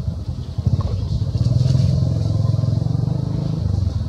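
A motor vehicle engine running: a low, rapidly pulsing drone that grows louder about a second in.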